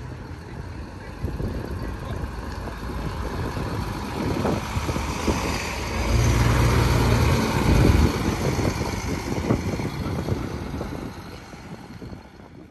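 Diesel bus engine running close by, swelling to its loudest about six to eight seconds in and then fading toward the end.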